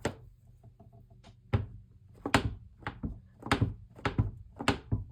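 A series of about eight dull thunks and taps on a tabletop, spaced unevenly about half a second to a second apart.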